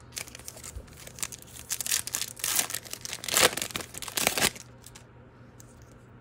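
A trading-card pack's wrapper being torn open and crinkled: a run of crackling rustles that stops about four and a half seconds in.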